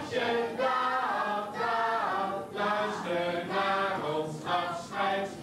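A large group of children singing a song together.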